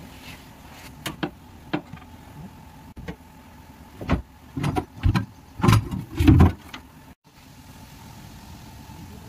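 A few sharp clicks, then a run of heavier knocks and thumps, as a car's steel fuel tank and its hose fittings are worked on with pliers and handled by hand.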